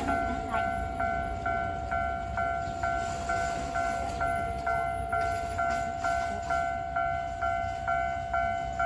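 Japanese level-crossing warning bell ringing, a steady electronic two-tone ding repeating about twice a second, over a faint low rumble.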